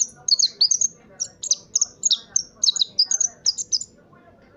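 Caged songbird kept as a caller (decoy) bird singing a fast run of high, sharp, down-slurred chirps that stops about four seconds in.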